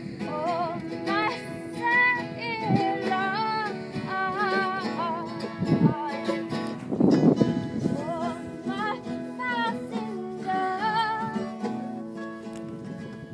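Music: a voice singing a melody with vibrato over a plucked acoustic string instrument.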